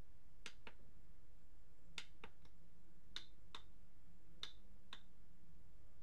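Small push buttons on a home theater amplifier's front panel clicking under a finger, about nine sharp clicks over five seconds, several in close pairs, over a steady low hum.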